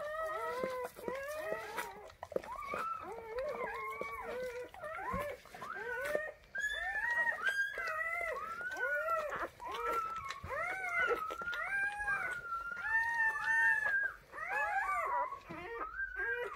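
Newborn Weimaraner puppy crying: a rapid string of short, high-pitched squealing cries, each rising then falling, about two a second and at times overlapping, while the mother licks it.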